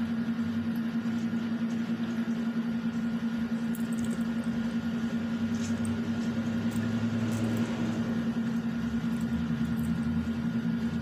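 Steady hum of a running window-type air conditioner: an even low drone with a faint steady whine above it, and a few faint light clicks.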